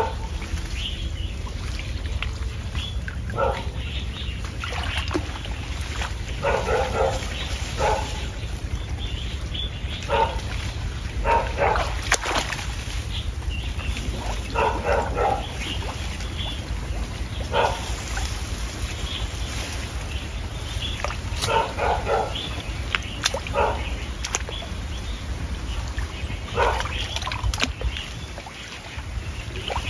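Short animal calls, each under half a second, repeating irregularly every one to three seconds over a steady low rumble.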